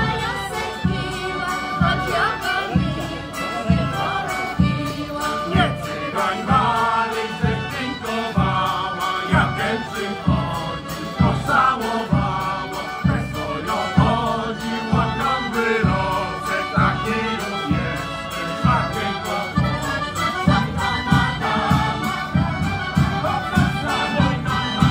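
Polish folk song-and-dance ensemble singing in chorus over folk-band accompaniment, with a steady low beat about twice a second.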